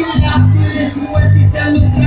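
Loud music played over a sound system: a heavy bass line changing notes on the beat, with a voice singing over it.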